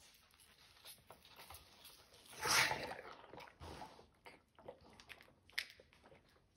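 Nine-day-old beefalo calf sucking milk from a rubber bottle nipple: small irregular slurps and clicks, with one louder noise about two and a half seconds in.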